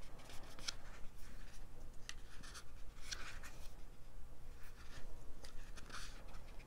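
Pages of a glossy paper booklet being turned by hand: a series of short, crisp paper rustles and flicks, one for each page.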